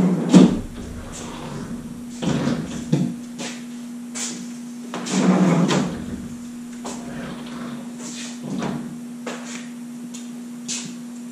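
Wooden bi-fold pocket doors being drawn out of their cabinet pockets on Knapp & Vogt rack-and-pinion flipper-door slides and folded shut: several short sliding rumbles from the slides, with wooden knocks and clicks as the doors swing and meet. The sharpest knock comes about a third of a second in, and a steady low hum runs underneath.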